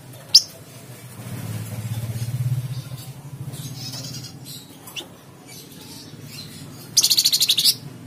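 A caged flamboyan songbird calling: a short sharp chirp just after the start, a softer buzzy phrase about two and a half seconds in, and near the end a loud, rapid rattling trill lasting under a second. A low hum swells and fades underneath in the first half.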